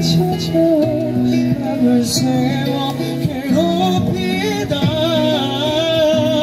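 K-pop ballad backing track playing over a portable PA speaker: a melodic passage between sung lines, with held chords and a vocal line rising and falling.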